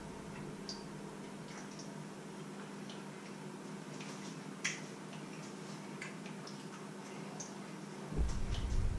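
Steady low hum in a small kitchen, with faint scattered clicks and ticks and one sharper click about halfway through. Near the end come low knocks and rumble as a hand is put down on the wooden countertop.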